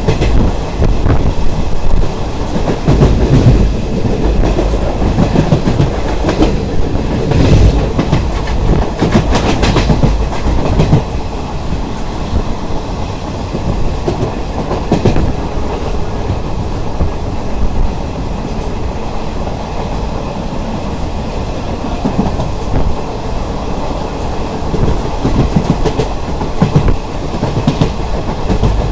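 Poorna Express passenger coach running at speed, heard from beside the coach side: a steady rumble of wheels on rail with clickety-clack over the rail joints. It is louder and more clattery for the first ten seconds or so, then settles a little quieter.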